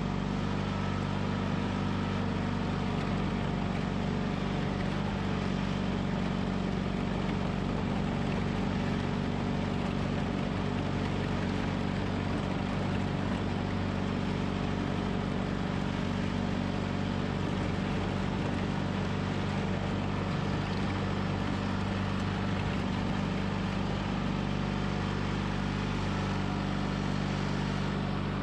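John Deere 420 garden tractor's Onan twin-cylinder engine running at a steady speed as the tractor drives along with its front plow blade.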